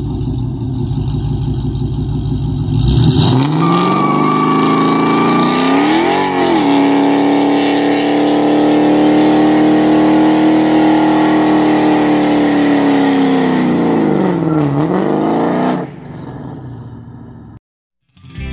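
Dodge Charger R/T's 5.7-litre Hemi V8 doing a burnout: it idles, revs up about three seconds in and is held at high revs while the rear tyres spin and smoke. The revs dip briefly twice and the engine drops back about three seconds before the end.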